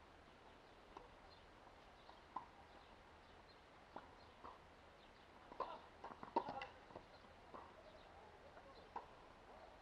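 Tennis balls struck by rackets and bouncing on a hard court during a rally: single sharp pops about every one to one and a half seconds, with a louder cluster of pops and scuffs a little past halfway as the near player hits.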